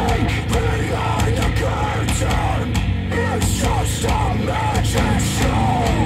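Rock song playing through KEF Q150 bookshelf speakers: a lead vocal over drums, bass and guitars, with a steady beat and crashing cymbals.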